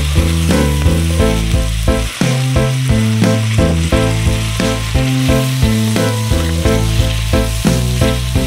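Food sizzling as it fries in a cooking pot, under background instrumental music with a quick, steady rhythm and a prominent bass line.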